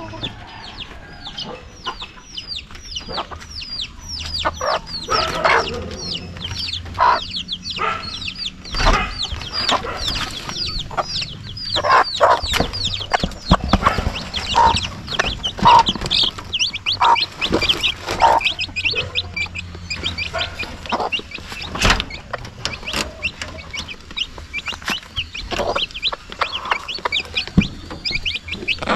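A brood of chicks peeping in quick, high falling chirps, with a mother hen clucking in between and a few sharp knocks.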